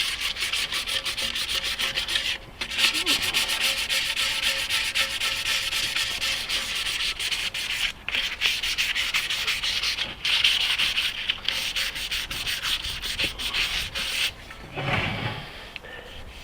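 800-grit wet-and-dry sandpaper rubbed dry over a hardened JB Weld repair on an aluminium alloy wheel, in rapid steady strokes with a few brief breaks; it stops a couple of seconds before the end. This is the final smoothing of the filler before paint.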